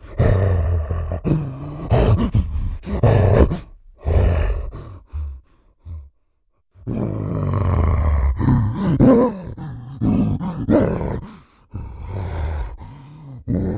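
Giant gorilla vocal sound effects from a film: a string of deep animal calls in short bursts, one after another, with a brief silent break about six seconds in.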